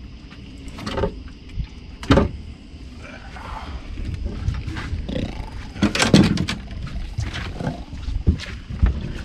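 Knocks, bumps and rustling as a large blue catfish is handled and lifted out of a landing net on a boat deck, with the loudest cluster of hits about six seconds in.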